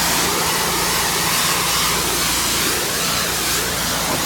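Honda 3200 PSI gas pressure washer running, its wand blasting a steady hiss of high-pressure water spray over the engine's constant hum.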